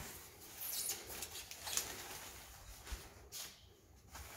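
Plastic vacuum-bag film rustling and crinkling in short, irregular bursts as it is handled and pulled over a polystyrene foam plug.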